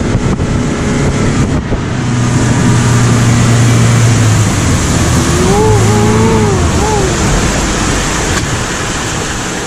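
Speedboat engine running steadily under a loud rush of wind and spray, its low hum strengthening for a couple of seconds. About five seconds in, a short drawn-out voice rises and falls briefly over it.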